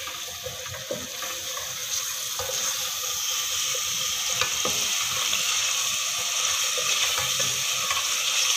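Onion-tomato-garlic masala frying in oil in an aluminium pot, sizzling steadily while a wooden spatula scrapes and knocks against the pot as it is stirred. The masala is at the bhuno stage, its water cooked off and now frying in the oil. The sizzle grows a little louder after the first couple of seconds.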